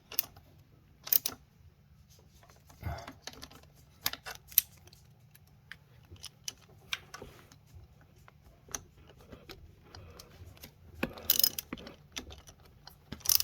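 Socket wrench tightening the high-pressure fuel pump's mounting bolts: scattered metallic clicks and tool clatter with quiet gaps, and a quicker run of clicks about eleven seconds in.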